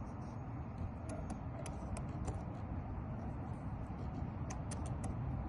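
Faint, light metallic ticks of a lock pick working the stuck wafers of a Ford Mustang's lock, a few scattered and then a quick run of four near the end, over a steady low rumble. The wafers are barely moving: the lock is dry and needs lubricating.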